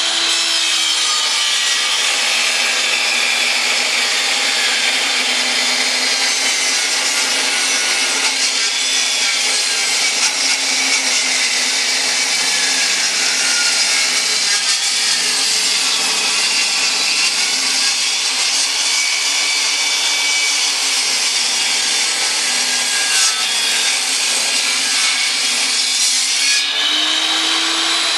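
10-inch table saw ripping a thick board lengthwise: a loud, continuous cutting noise over the motor's hum, which sags under the load of the thick wood. Near the end the cutting noise drops away and the motor climbs back up to speed as the blade runs free.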